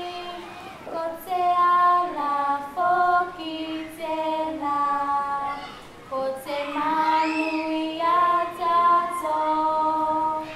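Young girls singing a song without instruments, in held, steady notes that move from pitch to pitch.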